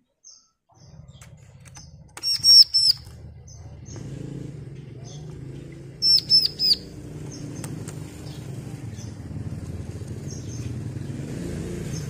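Bar-winged prinia (ciblek) giving two quick bursts of sharp, high chirps, about two seconds in and again about six seconds in, with scattered single chips between them. Underneath is a steady low rumble that starts about a second in.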